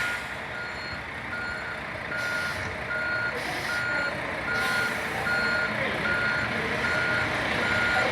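Vehicle reversing alarm, most likely on a bus backing out of a stand, beeping at a steady single pitch about once every 0.8 seconds over the low run of its engine.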